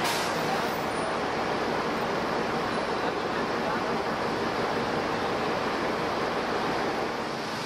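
Steady city street noise: a constant wash of traffic.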